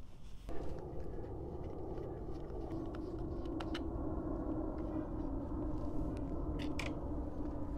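A few light clicks and taps from the fuselage hatch of a balsa RC plane being worked loose by hand, over a steady background hum.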